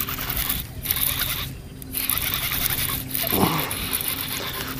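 Fishing reel cranked in quick spurts with brief pauses as a hooked bass is reeled in.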